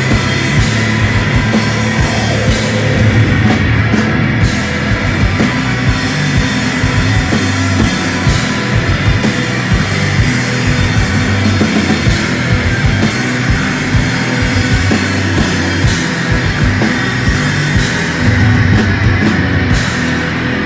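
Live post-rock band playing loud, dense music: electric guitar, bass guitar and a drum kit with frequent drum and cymbal hits.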